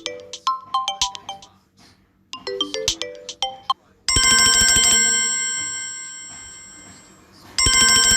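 Samsung Galaxy A21s ringtones playing. A quick tune of short plucked-sounding notes repeats twice. Then, about four seconds in, a different bell-like chime rings out and slowly fades, and it sounds again near the end.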